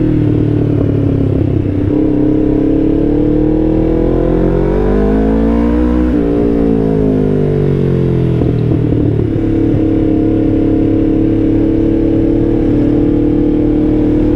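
Motorcycle engine running under way, its pitch rising steadily for a few seconds as the bike speeds up, then falling back and settling to a steady cruise.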